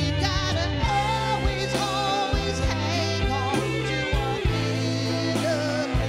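A woman singing a melody with vibrato, accompanied by a headless electric guitar over sustained low bass notes.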